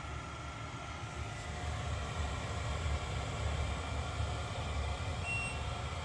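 Drucker Diagnostics Horizon 24-AH benchtop centrifuge running: a steady low hum from the spinning rotor and motor, getting a little louder about two seconds in, with a brief high tone about five seconds in.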